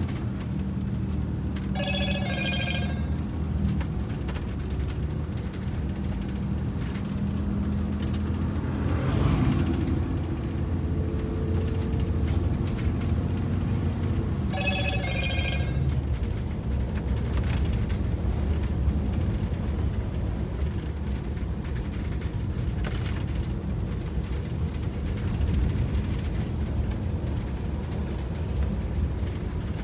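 Detroit Diesel 8V92TA two-stroke turbocharged V8, with four new pistons and liners, running steadily under way, heard from inside the bus's cab. Twice, a short ringing chime about a second long cuts in, once about two seconds in and again about fifteen seconds in.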